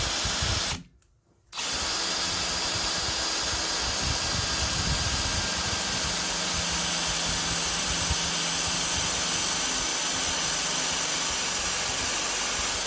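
Electric drill with a 5/32 in bit drilling a hole into the centre of the phone holder part. It runs in one short burst, stops for under a second, then runs steadily for about twelve seconds.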